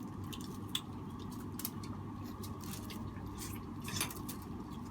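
Scattered soft clicks and squishes of people eating seafood with their hands and chewing, over a steady low hum.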